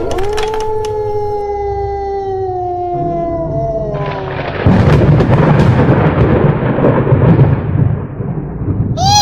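A long howl that rises briefly and then falls slowly for about four and a half seconds, followed by a loud thunderclap and rumbling thunder lasting about four seconds.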